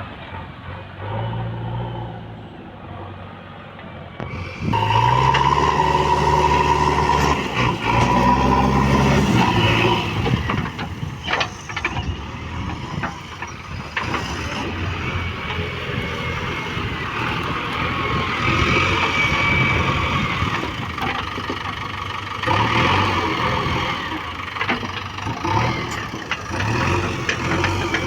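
Diesel engines of a backhoe loader and tractors working. An engine revs up hard about five seconds in, pitch rising, then the machines run on under load with uneven swells.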